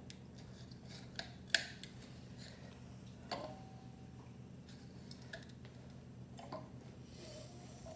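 Blackberries dropped one at a time into a stemmed wine glass, about five or six separate soft taps spread out, the loudest about one and a half seconds in; one tap about three seconds in is followed by a short ringing tone. A steady low hum runs underneath.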